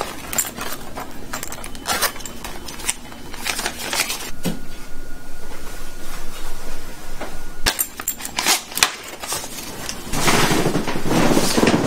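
Hands rummaging through a handbag and wallet: scattered small clicks, clinks and rustling, with a louder stretch of rustling near the end.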